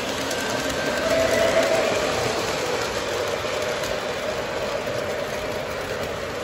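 Lionel O-gauge model train running past on its track: a steady rumble of wheels and motor, loudest a second or two in as the cars pass close.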